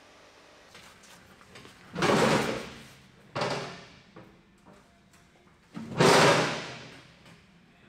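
Three loud bangs, each dying away with a long echo. The first, about two seconds in, and the last, about six seconds in, are the loudest, with a shorter one between them.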